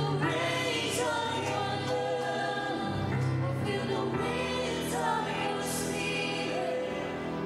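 A church worship team of female and male singers singing a slow gospel worship song over sustained instrumental accompaniment.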